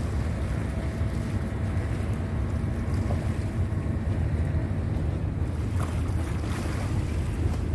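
Sea waves at the shore, with wind buffeting the microphone in a steady low rumble.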